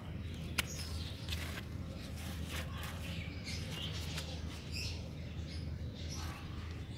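Hand cutter snipping through a brinjal stem with a sharp click about half a second in, then another faint click about four seconds in, amid faint rustling of eggplant leaves. Faint bird chirps are heard in the background.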